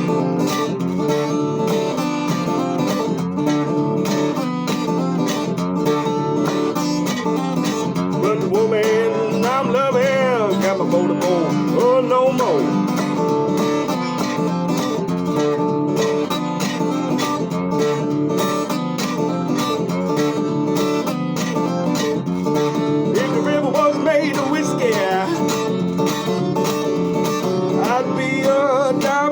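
Acoustic country-bluegrass string-band music with fast picked guitar; a bending melody line comes in briefly about a third of the way through and again near the end.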